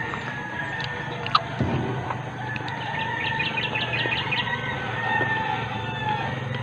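Roosters crowing, several long drawn-out crows one after another over a low steady hum, with a quick run of about ten clicks about three seconds in.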